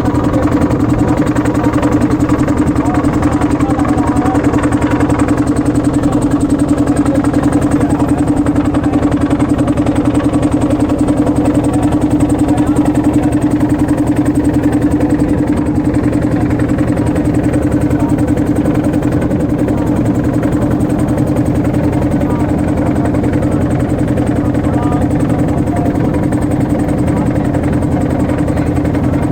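Motorboat engine running steadily at constant speed, with an even, unchanging pitch.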